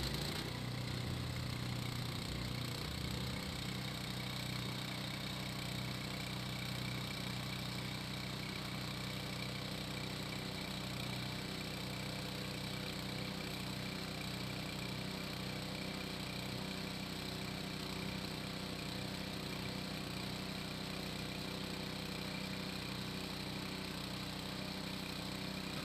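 Hecht 6208 garden branch shredder running steadily, its motor giving an even hum with no change in speed and no chopping of branches.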